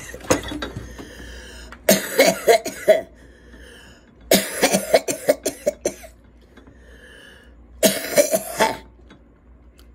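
A woman coughing hard in three fits, each a rapid string of coughs, the smoker's cough of someone who has just inhaled a hit of cannabis smoke.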